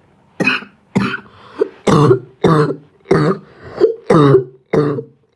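A person coughing in a fit: a run of about nine harsh coughs, roughly two a second, each trailing into a short voiced rasp, starting about half a second in.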